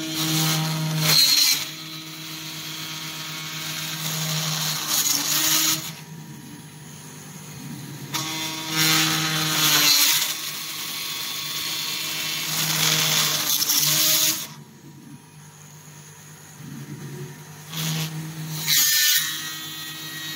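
Automatic screw-installing machine working on an aluminium floor-squeegee profile: a steady motor hum under five loud bursts of drilling and driving noise a few seconds apart, each stopping sharply as a cycle ends.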